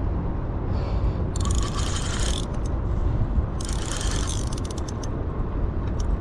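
Spinning reel being cranked in two bursts of rapid clicking gear noise, about a second and a half in and again about four seconds in, winding in a hooked fish near the end of the fight. Strong wind rumbles on the microphone throughout.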